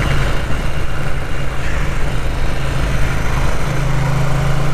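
Ducati 900 SS air-cooled V-twin running under way, a steady low drone that strengthens near the end, with road and wind noise.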